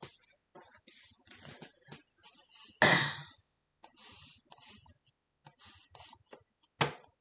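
Scattered light clicks from working a computer, with a brief breathy sound of the voice about three seconds in and a sharper, louder click near the end.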